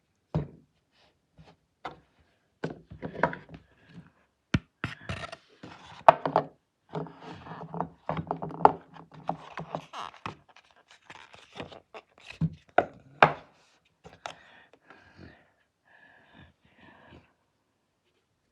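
A person breathing heavily, with scattered knocks, thumps and scrapes of something being handled.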